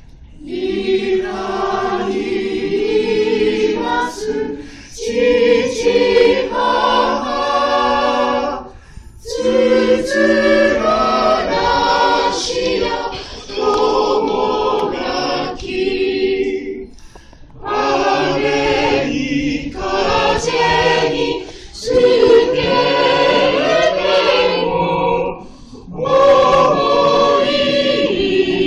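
A small mixed choir singing in parts, with women's voices to the fore, phrase by phrase with short breaks for breath between the phrases.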